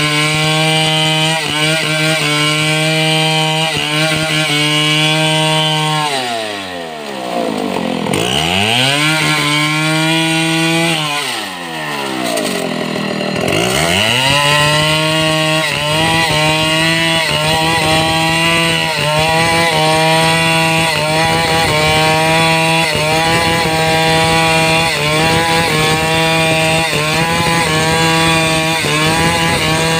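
Two-stroke chainsaw running at high revs while cutting mahogany wood. Twice the engine speed falls away steeply and picks back up, around seven and twelve seconds in.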